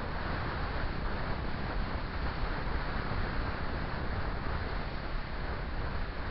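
Steady wind noise rushing over the microphone of a camera riding on a moving motorcycle, over a low, even rumble of the ride.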